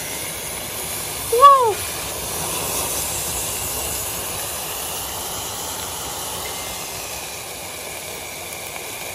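Firework fountain burning inside a carved pumpkin: a steady rushing hiss as it spews flame and sparks, easing slightly near the end. A man exclaims once, loudly, about a second and a half in.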